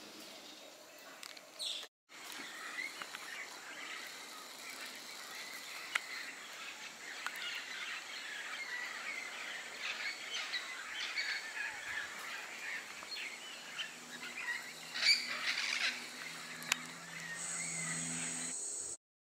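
A chorus of many birds chirping and calling together, with a short break about two seconds in. In the last few seconds a low steady hum joins under the birdsong.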